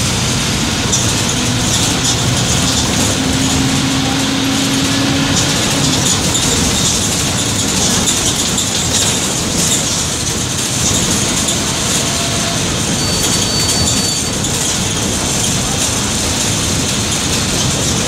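Mercedes-Benz OF-1722M bus's OM-924 LA four-cylinder inline diesel running, with a steady loud rumble and a constant rattle; a brief low whine sounds a few seconds in.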